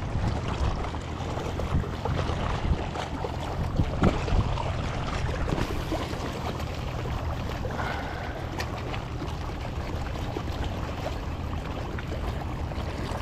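Small sea waves washing and splashing against the rocks at the water's edge, with wind rumbling on the microphone. A few short knocks come in the first few seconds.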